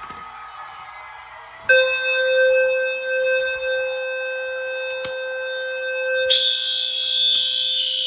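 Fire alarm signalling devices set off: a loud steady tone with many overtones starts suddenly about a second and a half in. A second, high-pitched alarm sound joins near the end.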